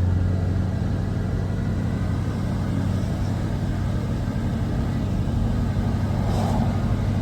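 Motor vehicle engine running steadily with a low, even drone.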